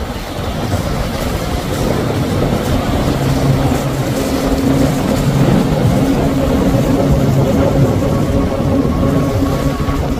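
Outboard motors of a center-console boat running at speed, a steady engine drone that grows a little louder over the first few seconds.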